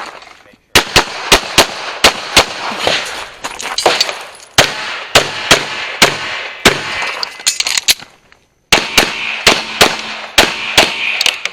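Pistol firing a rapid series of shots, with a short break about eight seconds in before the shooting resumes.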